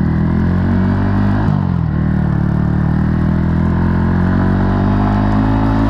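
Modified Yamaha XSR 155's single-cylinder engine running under way through an Arrow aftermarket exhaust. Its pitch dips about a second and a half in, then holds steady.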